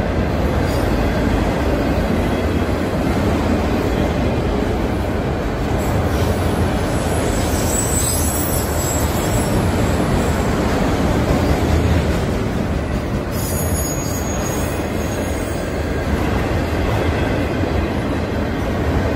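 Freight train cars rolling past at a grade crossing: a steady, loud rumble and rattle of wheels on rails, with high-pitched wheel squeal rising twice, about a third of the way in and again past the middle.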